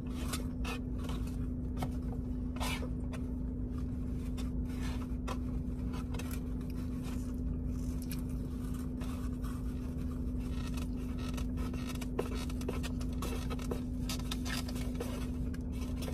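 Eating sounds: a utensil scraping and clicking in a food container, with chewing, in many small irregular strokes over a steady low hum.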